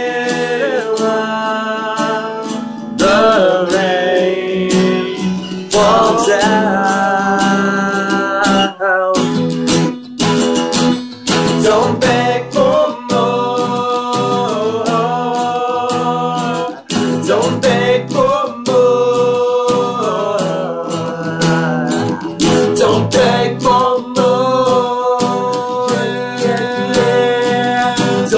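Two men singing a song together, accompanied by two strummed guitars.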